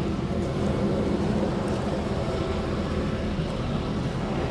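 Airbus A321neo jet engines running at taxi power as the airliner rolls along the taxiway, a steady low rumble.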